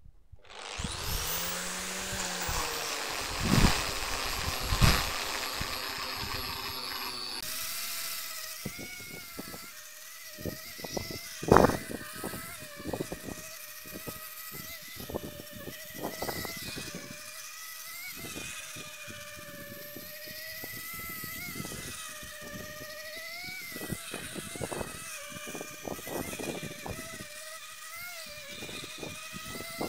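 Electric angle grinder with a hook-and-loop sanding disc spinning up with a rising whine, with a few loud knocks in the first seconds. It then sands the end grain of a wooden log round, its whine wavering in pitch as the disc is pressed onto the wood, heard sped up and choppy.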